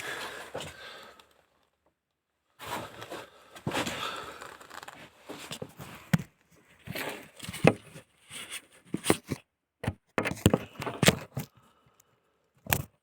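Irregular scrapes and rustles with several sharp knocks, as of parts and tools being handled during engine work, broken by short dead-silent gaps.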